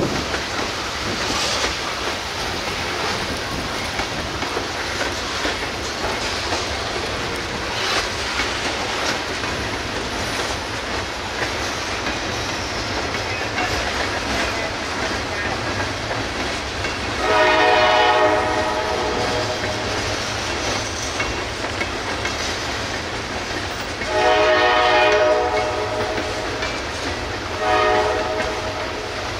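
CSX freight train running past with a steady rolling rumble, its locomotive's multi-tone horn sounding two long blasts and then a short one, the pattern of a grade-crossing warning.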